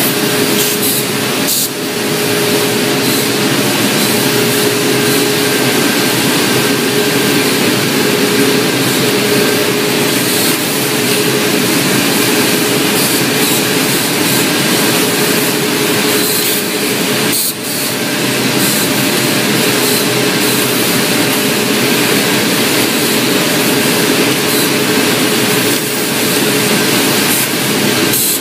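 Savio automatic cone winding machines running in a yarn mill: a loud, steady, even machine hiss with a constant hum tone underneath.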